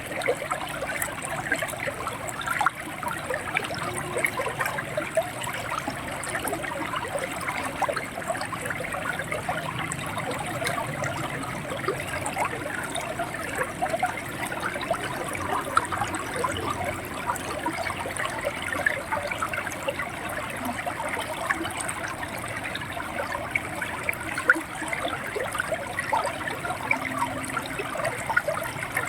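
River water running over rocks, a steady gurgling and splashing with many small quick splashes.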